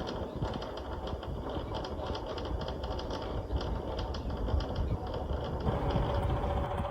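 Air conditioner making an abnormal rattle: a fast, irregular clattering over a low rumble. About five and a half seconds in, the clatter fades and a steady hum takes over.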